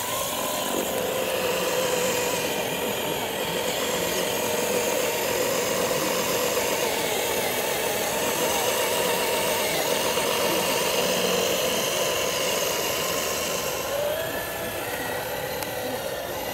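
Scale RC crawler truck's electric motor and gearbox whining steadily as it drives through muddy water, with water sloshing around it. The whine dips and rises in pitch near the end as the throttle changes.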